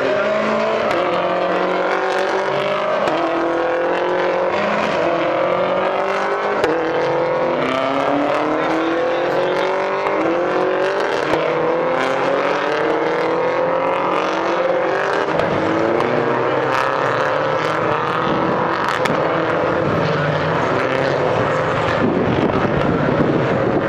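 A pack of touring race cars running past one after another, their engines rising in pitch through each gear and dropping back at every upshift, several engines overlapping at once.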